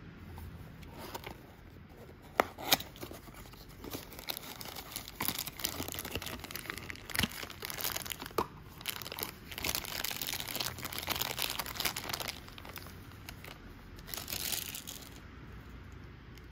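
A thin clear plastic bag crinkling as a die-cast model car is unwrapped from it. Two sharp clicks come about two and a half seconds in, then a long stretch of crinkling and a last short burst near the end.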